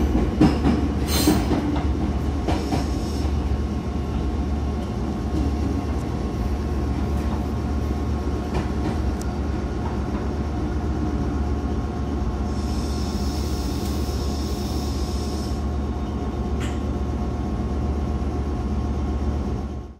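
Meitetsu 5000 series electric train heard from inside the car: a steady low hum with faint steady whining tones, a few sharp clicks in the first seconds, and a hiss of high noise lasting about three seconds past the middle.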